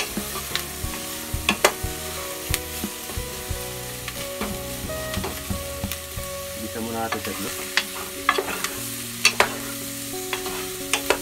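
Wooden spatula stirring beef cubes and onions frying in butter in a pot, with a light sizzle and repeated sharp knocks of the spatula against the pot, the loudest about nine seconds in.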